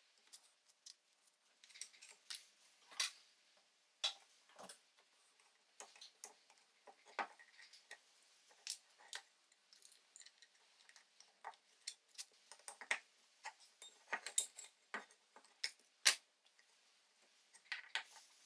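Small steel spanners and fittings clicking and clinking, irregular and sharp, as the steel burner head of a vintage blowtorch soldering iron is worked apart by hand on a wooden workbench.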